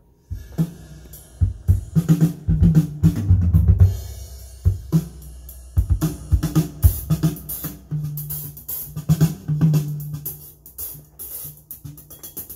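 Drum-heavy audiophile sound-test music, with kick drum, snare, cymbals and a deep bass line, played back through the McIntosh MA6100 preamp-amplifier and speakers as a listening test of the amplifier.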